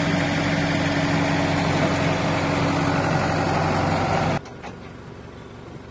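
A diesel engine idling steadily, which cuts off abruptly about four and a half seconds in and leaves only a much quieter background.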